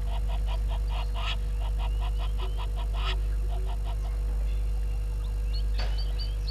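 A bird's fast series of harsh, honking calls, about six a second, which stops about four seconds in. Near the end a second bird gives short rising whistles, all over a steady low hum.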